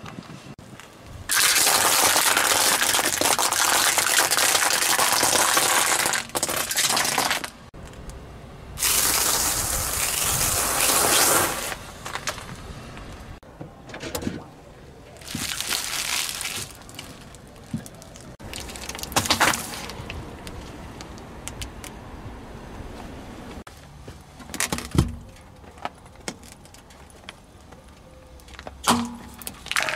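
Car tyres rolling slowly over objects on asphalt in a run of short crushing clips: long stretches of steady tyre-and-road noise, and a few sharp cracks and pops as the items give way.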